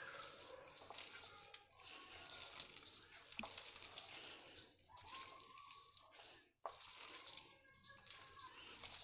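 Faint wet squishing of gram-flour batter with cauliflower florets being mixed by hand in a glass bowl, with two faint clicks a few seconds apart.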